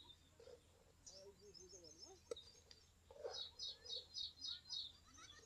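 Faint birdsong: short repeated chirps, about three or four a second, in the second half, over a few softer, lower calls. A single sharp click about two seconds in.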